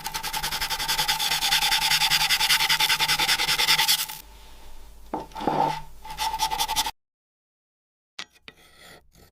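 Metal wool scrubbing rust and old paint off a metal toy robot's leg in fast, even back-and-forth strokes. It goes loud for about four seconds, softer for a few more, then stops suddenly, with a brief faint bit of rubbing near the end.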